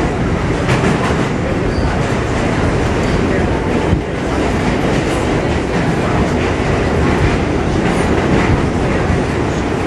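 New York City subway train running at speed through a tunnel, heard from inside a car as another train runs alongside on the next track: a steady loud rumble with scattered clicks from the wheels on the rails.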